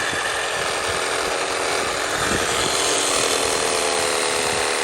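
Reciprocating saw (Sawzall) running steadily, cutting through ABS plastic drain pipe.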